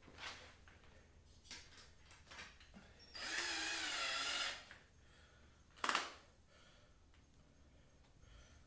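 Power drill driving a tiny Phillips screw through a small metal bracket in one run of about a second and a half, starting about three seconds in. A single sharp click comes near six seconds, with faint handling taps around it.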